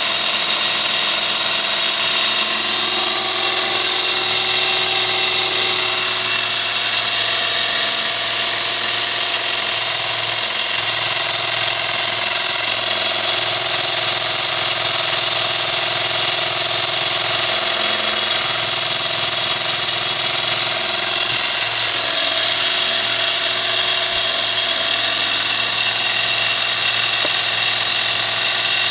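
Miniature abrasive belt sander's small DC motor running steadily with the belt whirring: a continuous hiss over a few steady hums that shift slightly in pitch now and then.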